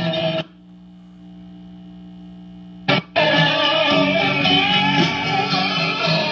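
Guitar-led pop music playing from a 45 rpm record on a 1955 RCA Victrola 6-EY-3B record player. About half a second in, the music drops out to a quiet, steady held tone. A short burst comes near the three-second mark and the guitar music starts again.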